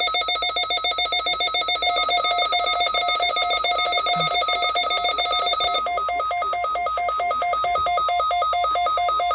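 Emergency alert receiver's electronic alarm tone: a loud, rapidly pulsing warble, ringing like a telephone bell. Its pulsing turns choppier about six seconds in.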